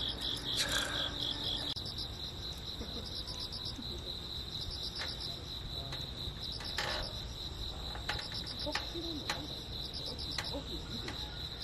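Insects chirping in a continuous high trill, pulsing for the first couple of seconds and then steady, with a few faint clicks now and then.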